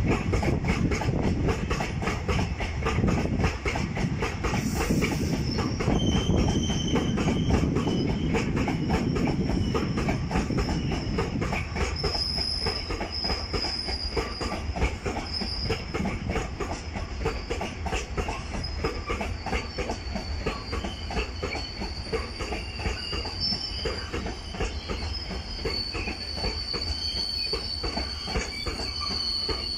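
A freight train of open-top gondola coal wagons rolls past, its wheels clattering rhythmically over the rail joints. A thin, high wheel squeal starts about six seconds in and grows stronger from about twelve seconds on, while the low rumble eases somewhat.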